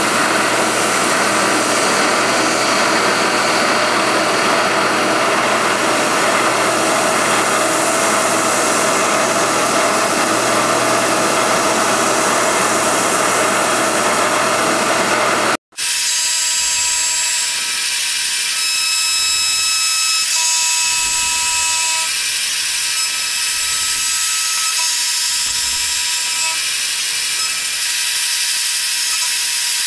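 CNC milling machine running, its end mill cutting a mitre into a square tube: a loud, steady whir and hiss. About halfway through, the sound cuts out for an instant. After that, whining tones come and go over the cutting noise as the cutter moves.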